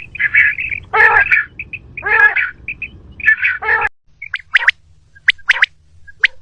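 Common quail calling: a quail call track used as a hunting lure. Rich calls repeat about once a second, then near the four-second mark the sound switches abruptly to a run of short, sharp chirps.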